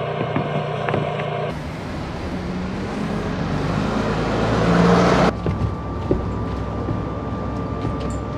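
Road traffic: vehicle engine and tyre noise that swells over a few seconds and cuts off abruptly about five seconds in, with another sudden change in the sound about a second and a half in.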